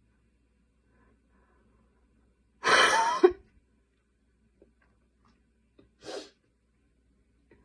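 A person's single loud, harsh cough about three seconds in, with a brief voiced catch at its end, during a night-time coughing fit. A short, much quieter breath follows about three seconds later.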